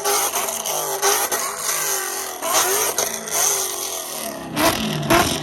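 Car engines revving, the pitch climbing and dropping again and again, with a louder, deeper run of revs near the end.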